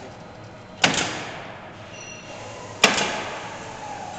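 Pneumatic nailing head on an automated wall-panel framing machine firing nails into wood framing: two sharp shots about two seconds apart, each ringing on briefly, over a steady machine hum.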